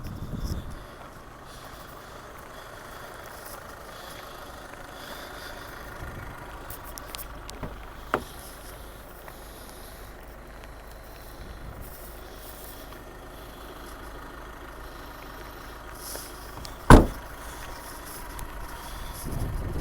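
Audi A3 1.6 TDI's four-cylinder diesel engine idling steadily, with a small click about eight seconds in and a loud, sharp knock near the end.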